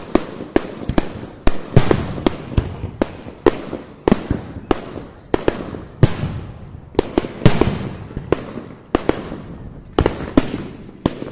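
Aerial fireworks shells bursting overhead in quick succession, a sharp bang about twice a second, each trailing off briefly.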